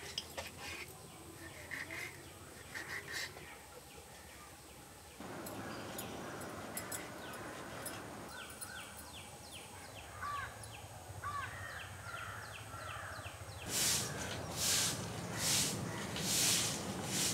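Light knife scraping as fish are scaled, with birds calling in the background. About four seconds before the end, a stiff twig broom starts sweeping leaves off wooden planks in loud, regular strokes a little under one a second.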